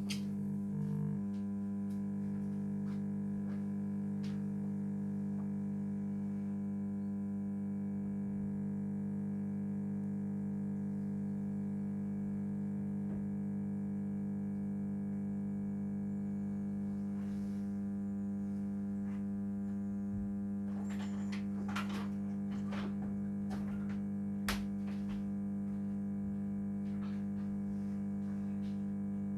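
Lamp ballast in a Thorn light fixture humming very loudly: a steady, unchanging electrical buzz with a few light clicks about three-quarters of the way through.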